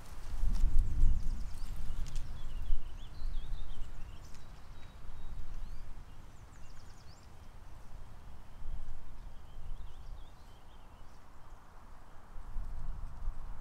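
Wind gusting on the microphone, an uneven low rumble loudest about a second in and again near the end, with small birds chirping faintly in the background.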